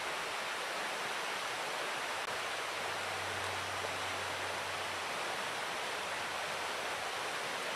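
Steady, even rushing hiss of outdoor background noise, with a faint low hum starting about three seconds in and lasting about two seconds.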